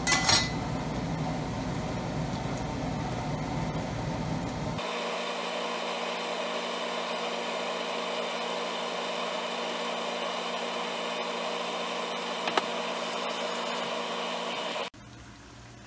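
Hot oil in a wok sizzling steadily as battered chicken pieces deep-fry, an even hiss with an occasional pop. A low rumble under it cuts out abruptly about five seconds in.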